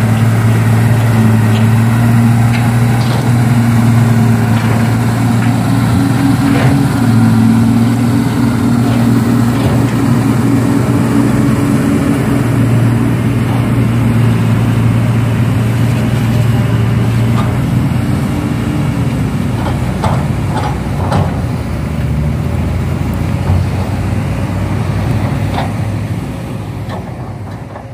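An engine running steadily with a low hum, with scattered short clicks; the sound fades out near the end.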